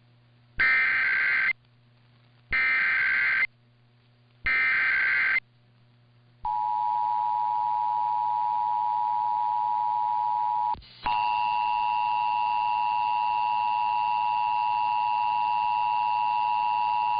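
Emergency Alert System tones: three one-second bursts of SAME header data, a buzzy digital screech repeated about two seconds apart. Then the steady two-tone EAS attention signal starts. It drops out briefly about eleven seconds in and resumes with a higher tone added.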